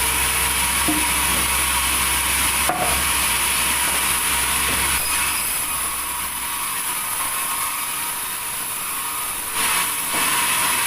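A sawmill saw running and cutting through wood, a steady loud, high-pitched noise. A deep machine hum under it falls away about six seconds in, and there is one sharp click about three seconds in.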